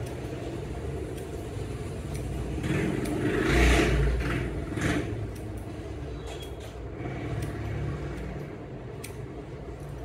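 Steady low rumble of road traffic, with a vehicle passing loudly about three to four seconds in. Light clicking of barber's scissors snipping beard hair is heard through the later seconds.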